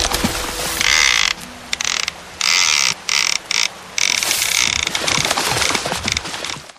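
A fishing reel's ratchet clicking in rapid stop-start spurts of roughly half a second to a second each, as line runs off or is wound in against the clicker; it cuts off sharply near the end.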